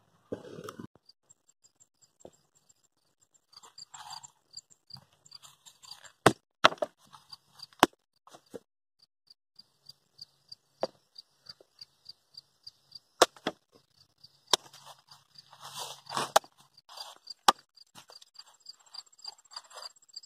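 Sharp, separate chopping blows of a big handmade knife cutting through a squash onto a wooden chopping stump, half a dozen single strikes with a busier patch of cutting in between. Behind them, a steady high chirping pulses about three times a second.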